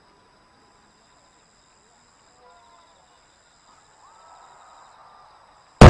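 Faint quiet background, then near the end the single sudden, loud boom of a large aerial firework shell bursting.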